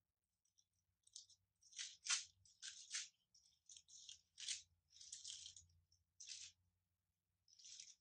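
Bible pages being leafed through: a quick, irregular run of short, soft paper rustles and flicks while a verse is searched for.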